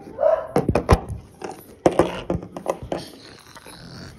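Plastic toy animal figurines knocking and clattering on a wooden table in a mock fight: a quick run of sharp knocks, thickest in the first three seconds. A child's mouth-made animal growl comes near the start.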